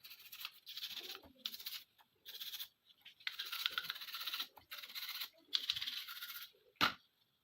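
Repeated brush-scrubbing strokes on a pistol part, in runs of about half a second to a second with short pauses, then a single sharp clink near the end.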